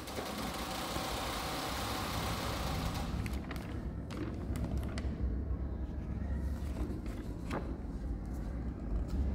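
Paper pages of a project file being turned and handled: a rustle over the first few seconds, then scattered light taps and clicks.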